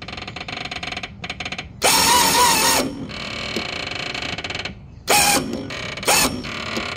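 A pop-up camper's 12-volt electric lift winch runs in short spurts, a ratcheting gear whir that stops and restarts several times, with louder bursts about two, five and six seconds in. The stop-and-go is the operator letting off and re-engaging the winch when the rising roof starts jumping.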